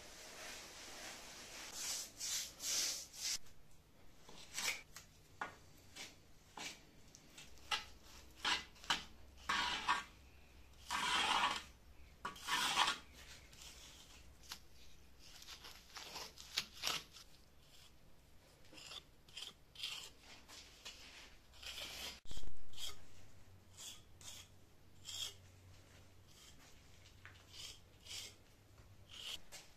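Hand float rasping and scraping over fresh earth-and-lime fibre plaster (calfitice) in repeated, irregular strokes while the surface is floated. One louder knock comes about two-thirds of the way through.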